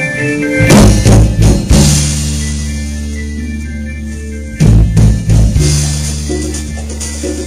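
Live band music: two rounds of drum-kit hits and fills, each followed by a long held low chord that slowly fades.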